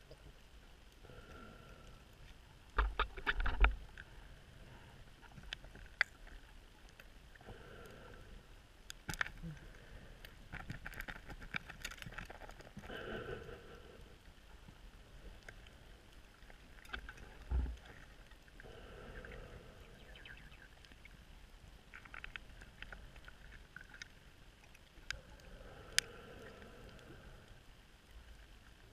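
Underwater sound of a scuba diver breathing through a regulator: exhaled bubbles bubbling up in swells every several seconds, with scattered clicks throughout. There are louder, rumbling bursts about three seconds in and again near seventeen seconds.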